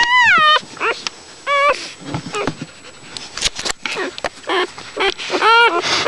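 Newborn puppies nursing: one pup squeals and whimpers in high, wavering cries. There is a long cry at the start, then short squeaks, and a lull with a few sharp clicks near the middle. Longer, lower cries come back in the second half.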